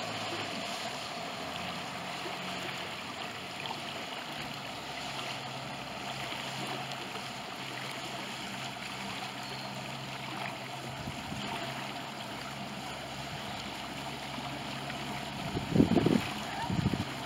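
Open-water ambience: a low steady hum of a distant boat motor over an even wash of wind and water, with two low thumps about a second apart near the end.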